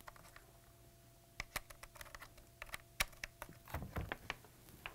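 Faint, irregular clicks and taps of hands handling a USB cable and plugging its connector in, starting about a second and a half in and bunching up near the end.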